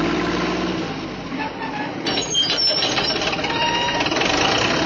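Steady mechanical rumbling and clattering.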